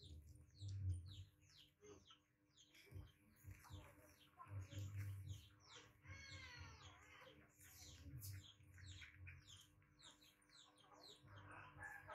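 Faint birds chirping in quick, repeated short notes, with a longer wavering call about six seconds in, over occasional low rumbles.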